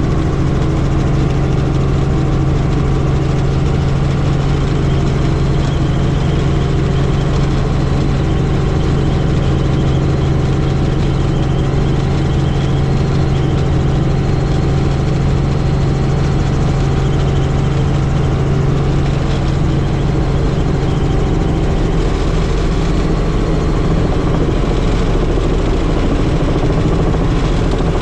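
Helicopter in flight: steady drone of the engine and rotor with a strong low hum, whose tone shifts slightly about three-quarters of the way through.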